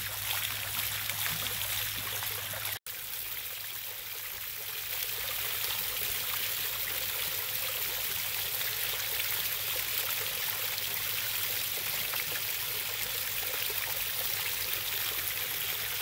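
Water from a stacked slate urn fountain bubbling up from its top and splashing steadily down over its rim and sides. It cuts out for an instant about three seconds in and runs a little louder from about five seconds on.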